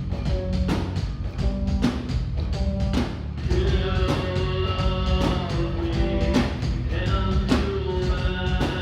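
Progressive metal band playing live: drum kit beating a steady rhythm under bass and guitars. About three and a half seconds in, a higher held melodic line comes in over the band.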